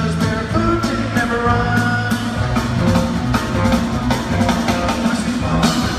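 Four-piece rock band playing live with drums, bass, guitar and keyboards, recorded on a phone from the arena seats, with a steady beat and a sustained bass line.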